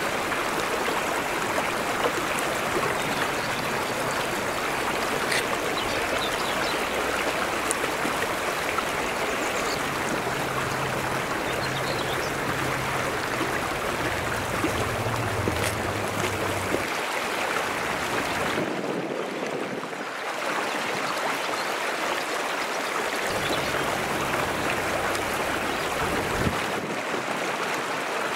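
Shallow mountain stream running over flat rock ledges: a steady babble and trickle of water.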